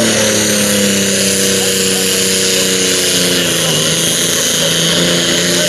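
Diesel engine of a John Deere super stock pulling tractor running hard under full load as it drags the weight-transfer sled, its pitch sagging slowly as the load builds.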